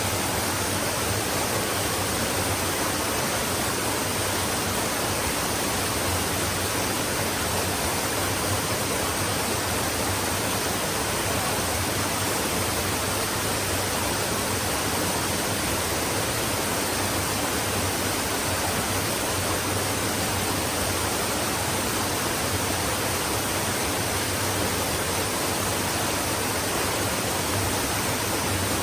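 A stream's water rushing steadily, a dense even hiss with no single splashes standing out.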